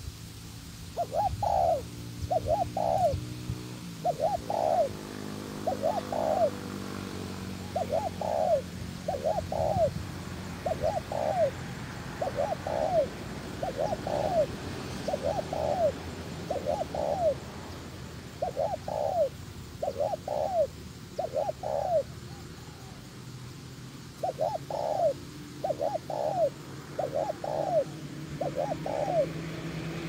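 Spotted dove cooing over and over, short soft notes in groups of two or three with brief pauses between phrases. A low engine hum sits underneath for the first several seconds.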